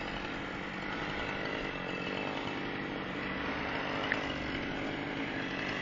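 Chainsaw running steadily while cutting down a tree.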